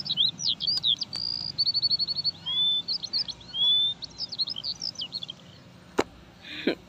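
Songbirds chirping, with quick rising and falling whistles and a fast trill, stopping about five seconds in. A single sharp click comes about a second later.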